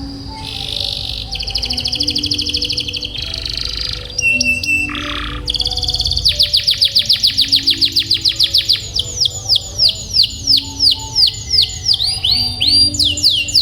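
Domestic canary singing: fast rolling trills, then from about six seconds in a long run of repeated downward-sweeping whistled notes, several a second.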